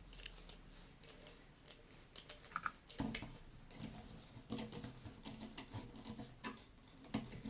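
Irregular light metallic clicks and taps of a gear puller being worked on a vacuum cleaner motor's shaft to draw off the bearing housing, growing busier about three seconds in.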